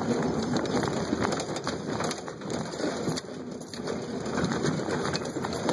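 Cabin noise of a 1995 Jeep Wrangler driving off-road on a dirt track: engine and tyres running over dirt, with many small crackles and knocks from the rough ground.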